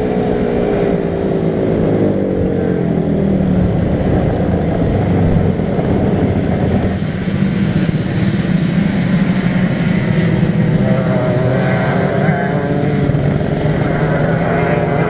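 Go-kart engines on track: one engine's note falls away over the first few seconds, then another kart's engine rises in pitch from about eleven seconds in. Under it all is a steady wind rumble on the onboard microphone.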